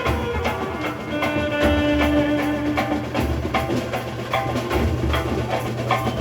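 Dhumal band playing a Sawari dhun: saxophones carry the melody, with one long held note about a second in, over a steady beat of drums.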